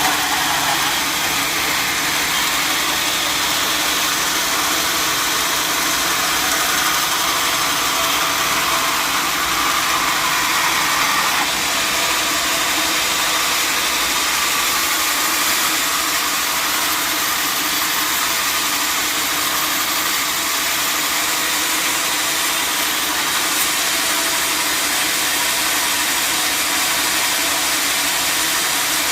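Sawmill machinery running steadily: a continuous, even mechanical noise with an engine-like hum and no breaks or sudden strokes.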